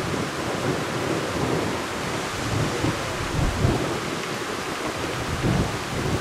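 Wind buffeting the microphone: a steady rushing noise with irregular low rumbles that swell and fade every second or so.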